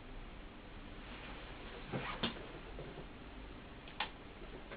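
A few light clicks from the woofer's frame and tools being handled on the workbench: two close together about halfway through and one more near the end, over faint steady hiss.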